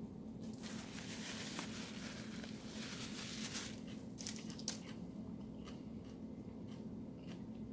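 Close-miked eating: chewing and mouth clicks, with a crackly stretch of crunching or rustling in the first few seconds and a sharp click near five seconds, over a steady low hum.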